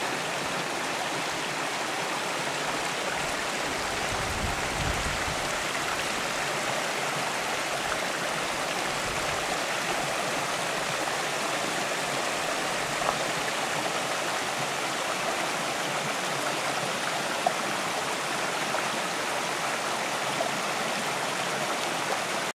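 Shallow mountain stream running over rocks and a small cascade: a steady rush of water, with a couple of brief faint clicks in the second half.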